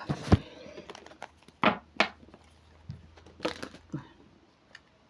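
Tarot cards being shuffled and handled: soft rustling with several sharp card snaps, the loudest about a third of a second in and others near two seconds and three and a half seconds in.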